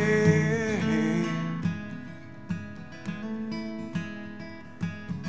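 Live acoustic guitar song: a man's voice holds a sung note that ends about a second in, then the guitar carries on alone with softer, separate picked notes and strums.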